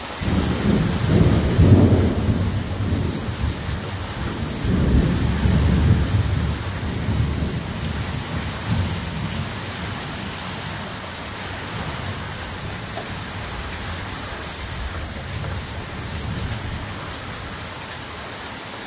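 Thunder rumbling over steady heavy rain: the rumble breaks in suddenly, swells twice in the first six seconds, then dies away while the rain hiss goes on.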